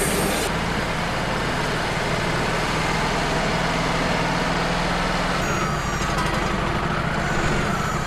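Wood-Mizer LT35 sawmill's engine running steadily under load. A high hiss cuts off about half a second in, and in the last two seconds a wavering whine rises and falls over the engine noise.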